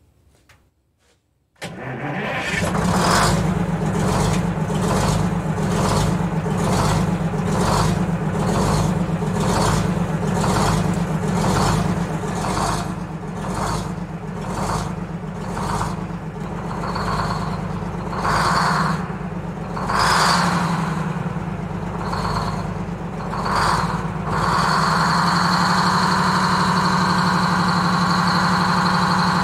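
Detroit Diesel 6-71 two-stroke diesel engine of a 1948 GMC Silversides bus starting up about two seconds in. It runs with a rhythmic pulsing, about one and a half pulses a second, then about 24 seconds in settles into a steady run with a high whine.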